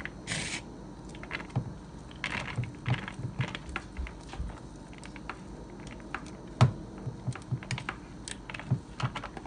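Irregular clicks, taps and scrapes as cooked chicken and rice is scraped by hand out of a bowl onto a plate, the bowl's rim knocking against the plate. There is a brief scraping rush just after the start and one sharper knock about two-thirds of the way through.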